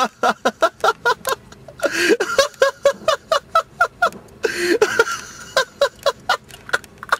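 A person laughing hard: quick runs of short ha-ha pulses, broken twice by wheezy gasps for breath, about two seconds and four and a half seconds in.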